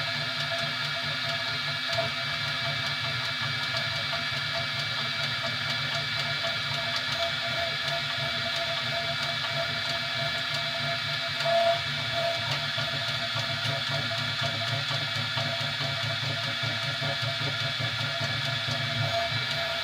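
A 3D printer running a print: a steady hum with several held tones over it, unchanging, with one short louder blip about halfway through.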